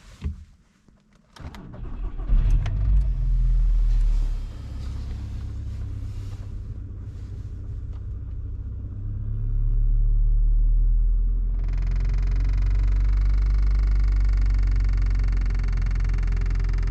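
Volkswagen Golf Mk5 car engine starting after a few clicks and running steadily, swelling early on and again near the middle. About twelve seconds in, a steady hiss joins the engine sound.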